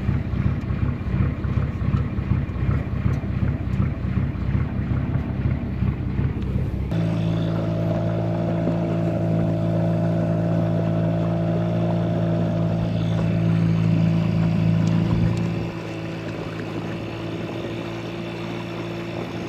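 A boat's diesel engine running, pulsing quickly and evenly for the first several seconds. About seven seconds in it changes abruptly to a steady hum, which gets quieter a few seconds before the end.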